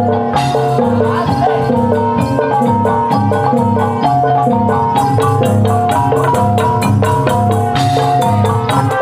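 Gamelan accompanying a kuda kepang dance: bronze-keyed metallophones struck with mallets play a quick, steady melody of short ringing notes over low gong tones.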